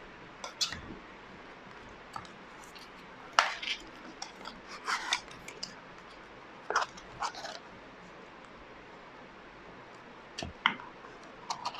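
Product packaging being opened and handled: scattered clicks, taps and short scrapes as a charger's box is unpacked, in bursts a second or two apart with quiet gaps between.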